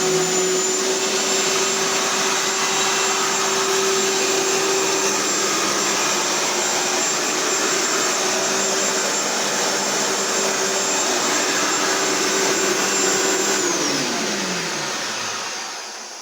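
Bissell 10.5-amp vacuum cleaner running loud and steady, a low motor hum with a high steady tone over the rush of air. About thirteen seconds in it is switched off and winds down, its pitch falling as it fades out.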